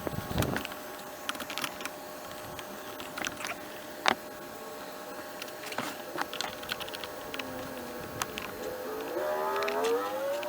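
Scattered light clicks and knocks of tools and parts being handled as a Stihl BR600 backpack blower is reassembled, with one sharper knock about four seconds in. A rising pitched sound comes in near the end.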